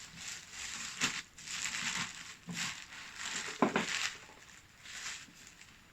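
Packaging crinkling and rustling as the diffuser is pulled out of its box, with a couple of light knocks about a second in and near the middle. The rustling dies down toward the end.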